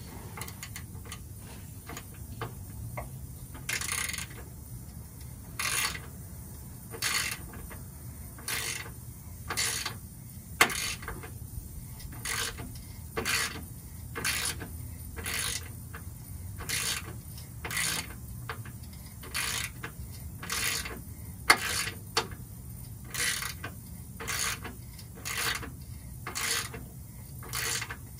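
Hand socket ratchet clicking in short repeated strokes, about one a second, as bolts are backed out.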